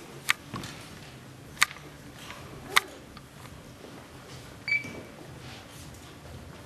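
Three sharp clicks about a second and a quarter apart over a faint steady hum, with a few softer ticks between them, then a brief high beep-like tone about five seconds in.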